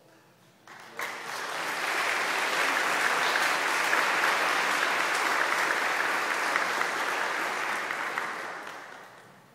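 Congregation applauding. The clapping starts suddenly about a second in, holds steady, and dies away near the end.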